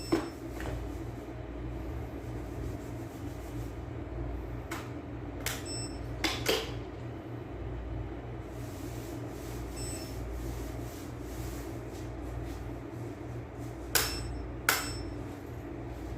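Fibre splicing tools being handled: a few sharp clicks, in pairs about 5 to 6.5 seconds in and again near the end, over a steady low hum. A faint short electronic beep sounds about ten seconds in.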